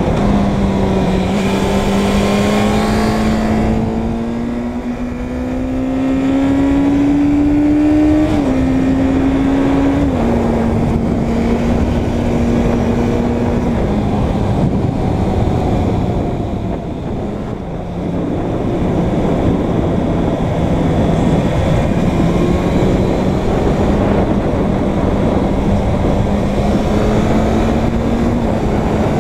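Suzuki Bandit 600 N's inline-four engine under way. Its note rises steadily for several seconds, then drops sharply with two upshifts about eight and ten seconds in. It settles to a steady cruise, eases off briefly with a dip around eighteen seconds in, and climbs slowly again near the end.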